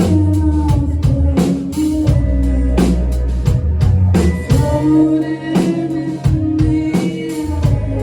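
A band playing live: drum kit hits over sustained bass and guitar.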